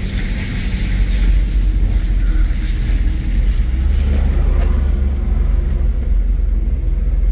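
A steady low engine drone, with a deeper rumble that grows a little stronger about halfway through.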